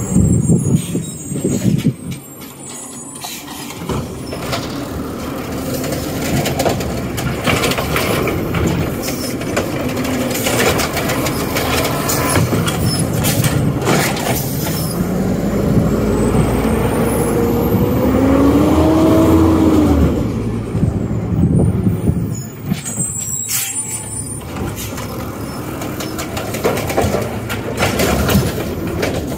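Automated side-loader garbage truck's diesel engine running as the truck drives slowly past and pulls up to the next carts. A pitched whine rises and then falls about two-thirds of the way through, then cuts off sharply.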